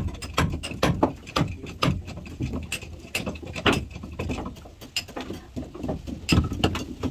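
Quick, uneven knocks and taps of hand tools on wood, a few a second, over a low steady hum.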